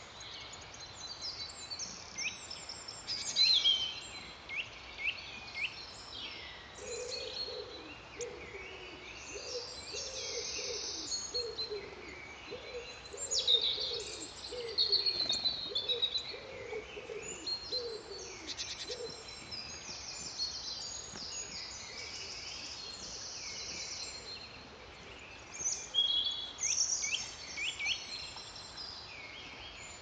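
Woodland songbirds singing and calling: many high chirps and song phrases from small birds. Through the middle a lower-pitched call repeats over and over for about twelve seconds.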